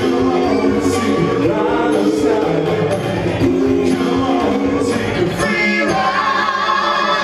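A vocal group of men and women singing a 1970s-style pop song together in harmony, holding long notes.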